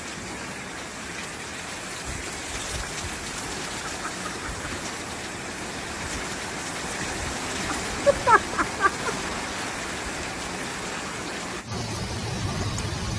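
Steady hiss of heavy rain and flowing floodwater, with a few brief high-pitched cries about eight seconds in. Near the end the sound cuts abruptly to a steady low hum.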